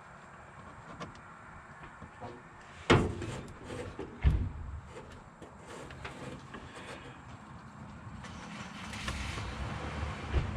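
Two loud knocks about three and four seconds in, among lighter clicks and handling noise, then a steady rushing noise from about eight seconds in.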